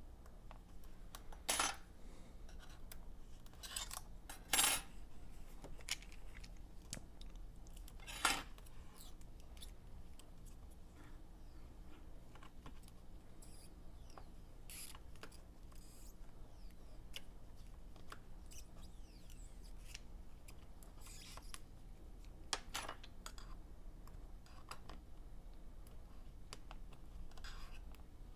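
Sparse small clicks and taps of hand tools against an open MacBook Air's case and parts, four of them sharper than the rest, over a faint steady low hum.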